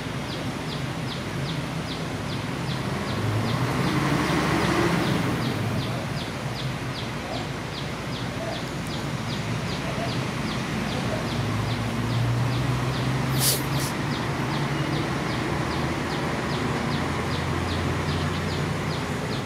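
Outdoor background with a high, short chirp repeating evenly about four times a second, over a low steady rumble. A brief sharp hiss cuts in about two thirds of the way through.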